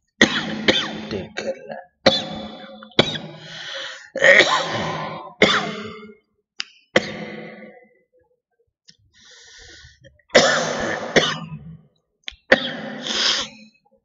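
A man coughing repeatedly in a coughing fit: about a dozen coughs in clusters with short gaps, and a lull of a couple of seconds near the middle.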